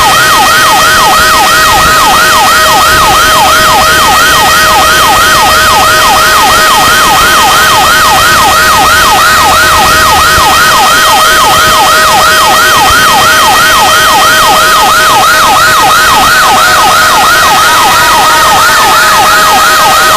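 Fire engine's electronic siren on a rapid yelp, about three sweeps a second, very loud, over a steady tone. Near the end a second, slower gliding siren tone comes in.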